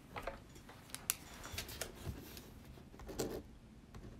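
Faint handling noise: a few irregular sharp clicks and light rustling, as of objects being moved about on a table.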